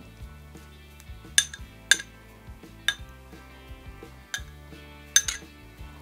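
Metal spoon scraping minced meat out of a small glass bowl, knocking against the glass in about five sharp clinks. Background music plays underneath.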